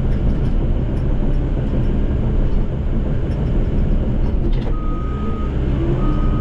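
Bulldozer's diesel engine and tracks running steadily while pushing soft dirt. About five seconds in, its backup alarm starts beeping, roughly one beep a second, as the dozer reverses.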